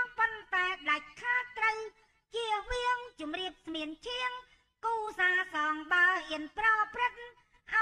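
A woman sings Khmer ayai verses in a high voice, in short phrases with brief pauses about two seconds in and about four and a half seconds in.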